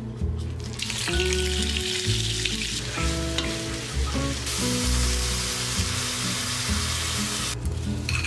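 Food frying in hot oil in a pan, sizzling while it is stirred. The sizzle starts about a second in, grows louder about halfway through and cuts off near the end. Soft background music with held notes plays underneath.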